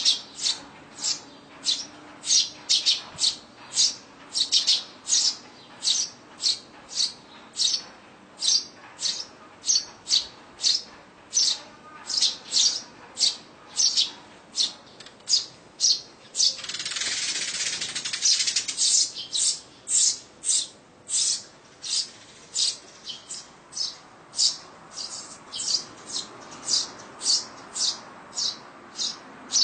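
Eurasian tree sparrows chirping at a nest box: short sharp chirps repeated about twice a second, with a burst of hiss lasting about two seconds around the middle.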